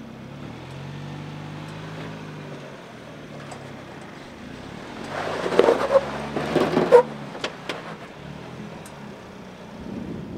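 2022 Ford Bronco Badlands engine running at low revs as the truck crawls up slickrock. About halfway through comes a louder stretch of crunching with several sharp knocks, as the big tyres climb a rock ledge.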